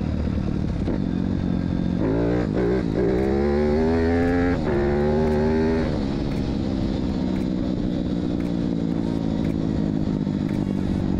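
Pit bike's 160 cc KLX-type single-cylinder engine with a four-valve head, running under way. About two seconds in it revs up, and its pitch climbs. Near the middle it dips briefly and climbs again, then drops back to a steadier running note about six seconds in.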